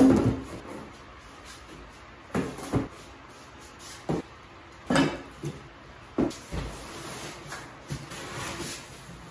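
Flat cardboard boxes being pulled out of a shipping carton and set down on a wooden workbench: a loud thump at the start, then a string of separate knocks and thuds, and a soft rustle near the end.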